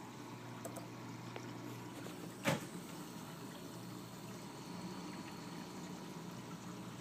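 Reef aquarium's pumps and circulating water: a steady low hum with a faint watery wash. A single short knock about two and a half seconds in.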